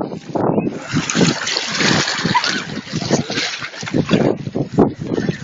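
Feet splashing through shallow water while wading, in irregular strokes, with wind noise on the microphone.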